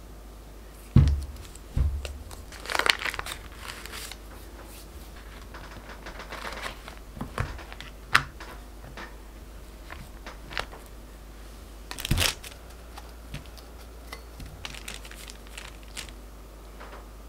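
Foil wrapper of a butter roll crinkling as it is handled and peeled open, after two dull thumps of the roll being set down. Then scattered sharp clicks and taps of a steel bench scraper cutting cold butter into cubes on the board.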